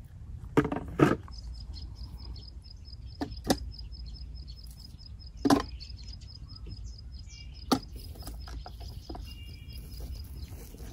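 A few sharp knocks from a hand tool digging in the ground, two in the first second and the loudest around the middle. A high, rapid ticking call, several ticks a second, runs from about a second in until near the end, over steady low outdoor background noise.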